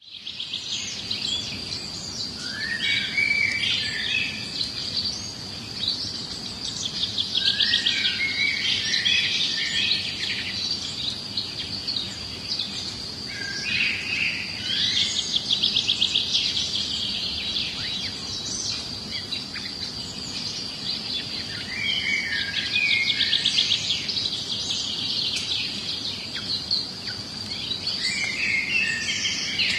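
Small birds singing outdoors in repeated phrases of quick chirps and rapid trills every few seconds. Beneath them runs a continuous, steady high-pitched tone.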